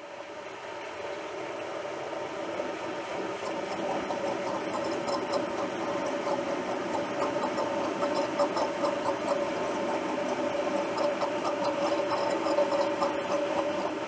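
SmartBot Robust 2800 half-horsepower submersible utility pump running steadily, a motor hum with one steady tone, as it pumps water out through a 2-inch discharge hose. It grows gradually louder over the stretch.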